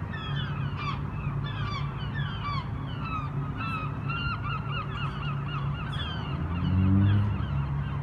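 A large flock of gulls calling overhead in a squabble, many overlapping sharp repeated cries, agitated by crows that the speaker thinks got in among them and hassled them. A low rumble swells briefly near the end.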